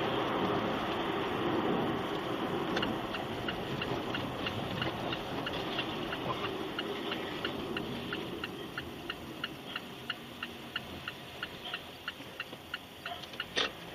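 A car's turn-signal or hazard-light relay ticking steadily, about three ticks a second, inside the cabin over engine and road hum that slowly dies down. There is a louder single click near the end.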